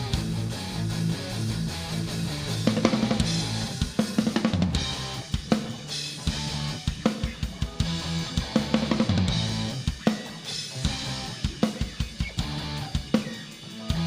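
Live rock band playing an instrumental intro: drum kit with bass drum, snare and cymbals over electric guitar and bass, no vocals.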